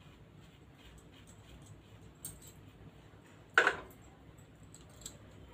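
Quiet kitchen handling while melted butter is spread on bread slices: a few soft clicks, then one sharp clack about three and a half seconds in, a utensil knocking against the small butter bowl.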